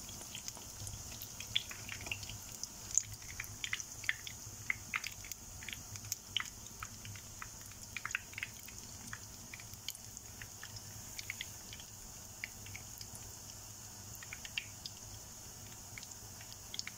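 Rounds of pişi dough frying in hot vegetable oil in a pan: a steady sizzle with irregular small pops and crackles, busier in the first half.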